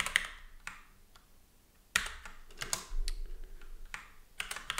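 Computer keyboard being typed on: a few short runs of keystrokes with pauses between them, near the start, about two seconds in, and near the end.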